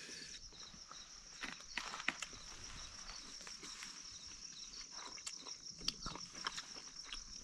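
Crickets trilling steadily in a high, continuous chorus, with scattered soft clicks and rustles of people eating by hand from steel plates.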